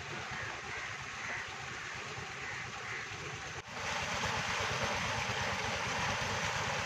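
Tubewell running: a heavy stream of water gushing from the outlet pipe into a brick tank, over the steady low rumble of the pump's Petter diesel engine. The rushing grows louder and brighter about three and a half seconds in.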